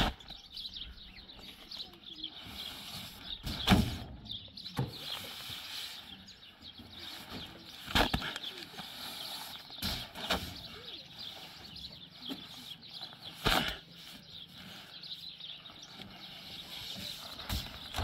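Heavy sacks of cement thudding down as they are hauled off a pickup truck's bed and stacked: about six dull thuds at irregular intervals. Birds chirp throughout.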